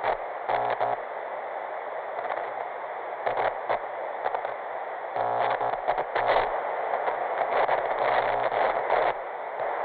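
Analog TV static: a steady, muffled hiss with frequent crackles and a low buzz that comes and goes.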